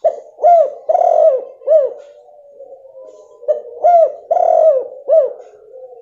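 Female spotted dove (tekukur) cooing: two phrases of three or four short, arched coos each, the second phrase starting about three and a half seconds in.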